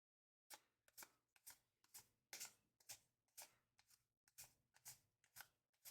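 Trading cards being slid one at a time off a stack, faint soft swishes about twice a second, starting about half a second in with a short pause in the middle.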